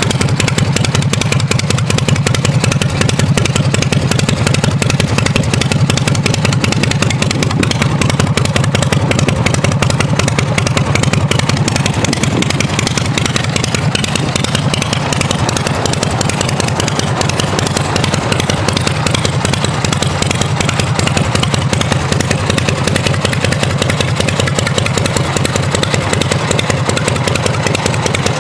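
Harley-Davidson Shovelhead V-twin engine of a chopper motorcycle idling steadily, with no revving.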